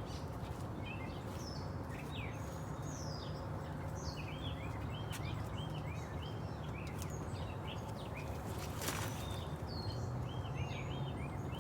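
Several small birds chirping and singing in quick short notes over a steady low rumble of background noise, with a brief burst of noise about nine seconds in.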